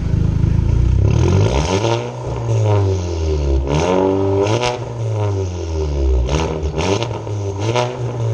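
Volkswagen turbocharged four-cylinder car engine revving up and down several times through an aftermarket exhaust, with a few sharp cracks between the revs.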